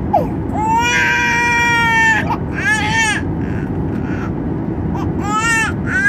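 A baby crying in a series of high-pitched wails, the longest held for about two seconds, over the steady low rumble inside a Boeing 737-800's cabin.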